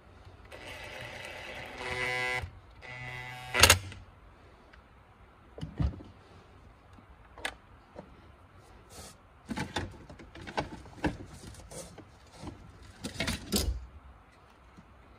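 Cordless drill-driver spinning briefly twice to drive screws into the plastic frame of a car side-mirror assembly, the second run ending in a sharp click. Scattered clicks and knocks of plastic mirror parts being handled follow.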